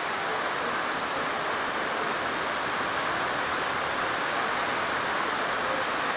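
Rain falling steadily on the wet paved ground and tracks, an even hiss with a few faint drop ticks.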